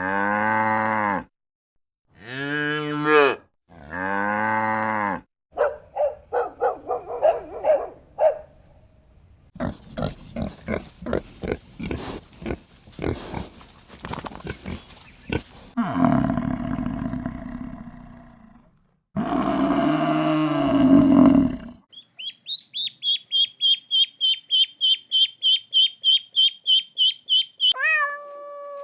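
A run of different farm animal calls edited one after another. It opens with three low, drawn-out cow moos. A series of short pulsed calls follows, then a long rough, noisy stretch, two more pitched calls, and a fast, even series of high chirps near the end.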